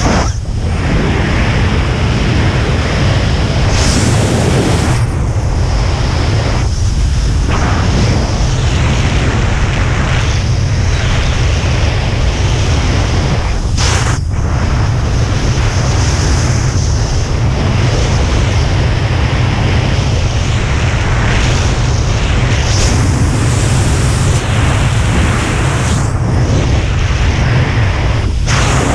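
Loud wind noise buffeting the camera's microphone during a descent under an open parachute, a constant low rumble with brief lulls now and then.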